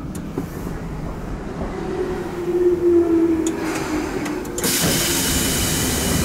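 Tobu 10030 series electric train running, a steady rumble with a faint humming tone around the middle. About four and a half seconds in, a loud hiss starts suddenly and cuts off just as sharply at the end.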